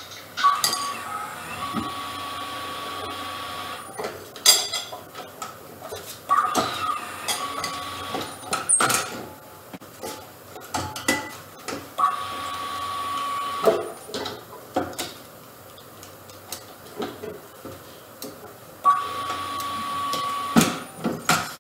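Tire changer machine at work: its turntable motor whines steadily in several spells of one to three seconds, with knocks and clanks of the tire, rim and mounting tools between them.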